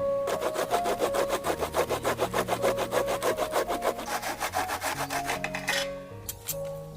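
Fast, even scraping or rubbing strokes, about six a second, that stop about six seconds in, over background music with steady piano-like notes.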